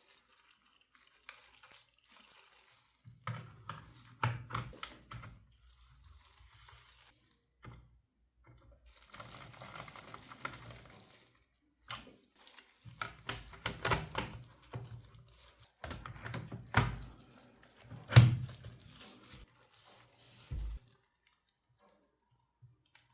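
Hands working on a laptop during a hard-drive-to-SSD swap: scattered clicks, taps and knocks of small plastic and metal parts, with rustling between them. The loudest knock comes about 18 seconds in.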